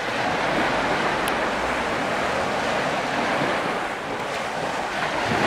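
Mediterranean surf breaking on the beach: a steady wash of waves that swells, eases about four seconds in, and builds again near the end.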